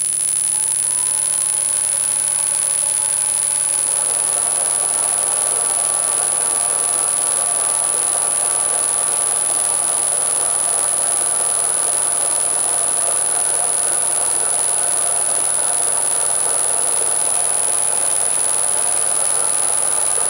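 NGF-110Sh4 milling machine running its spindle in the lowest gear, its motor fed by a frequency inverter at 12 Hz: a steady machine run with a constant high whine over it. A fainter tone rises over the first two seconds as it comes up to speed.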